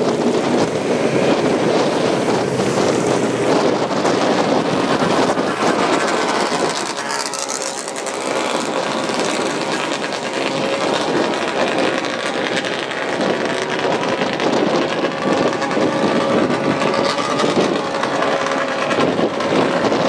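Classic racing sidecar outfits' engines at high revs as they pass on the straight. The sound dips slightly about eight seconds in, then a clearer engine note builds from about ten seconds in as another outfit approaches.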